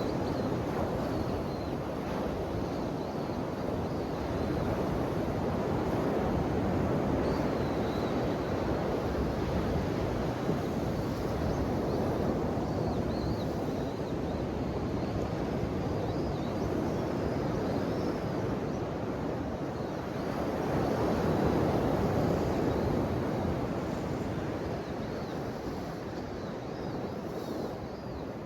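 Ocean waves washing onto the shore, a continuous rushing surf that swells louder about three-quarters of the way through.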